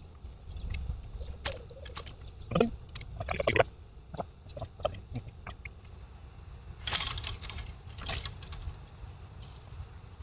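Clicks, knocks and light rattling from handling the parts of a fallen vertical antenna, with a louder burst of clattering about seven seconds in.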